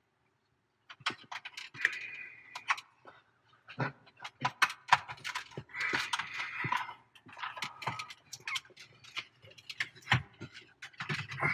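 2018 Chevy Silverado centre-stack plastic trim panel, carrying the touchscreen and climate controls, being fitted back into the dash. It makes a rapid run of sharp plastic clicks and knocks, with creaking and scraping between them, as it is worked into place. The sounds start about a second in.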